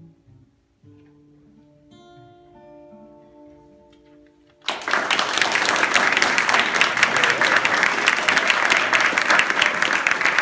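Two acoustic guitars play the last few notes of a piece and let a final chord ring. About halfway through, an audience breaks into loud applause that continues to the end.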